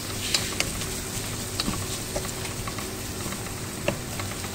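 Onions, green chillies and curry leaves frying gently in oil in a pan: a low steady sizzle with a few faint clicks.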